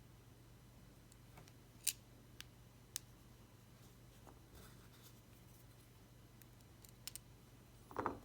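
A few faint, sharp clicks of small tools touching the watch parts being worked on, and a short duller handling sound near the end.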